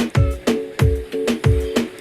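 Background electronic music with a steady beat: a deep kick drum that drops in pitch on each hit, about every half second to second, under short repeated synth chord stabs.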